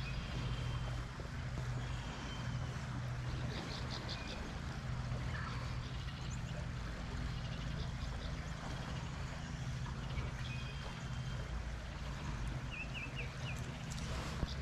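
A steady low mechanical hum with a light rushing noise over it, and short high bird chirps a few times, including a quick run of four near the end.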